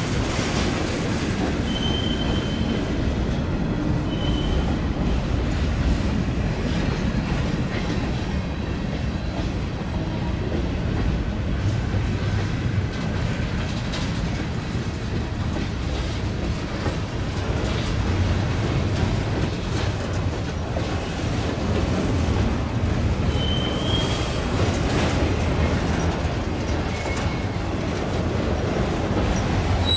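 Train rolling past: a steady low rumble of railcars with faint wheel clicks over the rails, and a few brief high-pitched wheel squeals.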